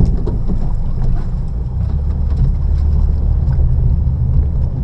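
Electrofishing boat's motor running with a steady low drone, a faint high whine and light ticking above it.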